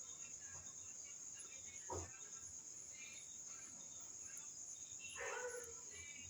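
Crickets chirping steadily in a high, continuous pulsing band, with a soft knock about two seconds in and a brief louder sound around five seconds in.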